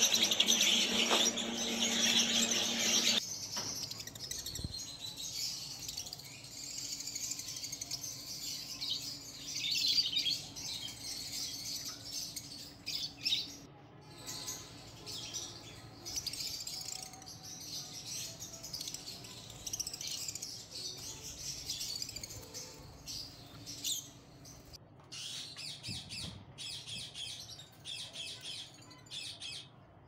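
Lovebirds chirping and chattering in rapid, high calls. For the first three seconds a steady low hum runs under louder chatter, and both cut off suddenly.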